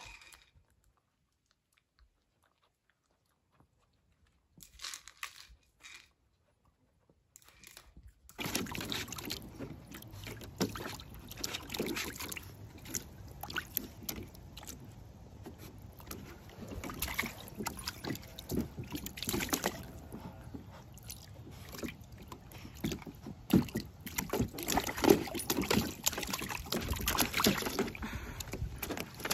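Silence for the first several seconds. Then a mini Australian Shepherd puppy paws and splashes in a shallow plastic kiddie pool, the water sloshing with irregular splashes.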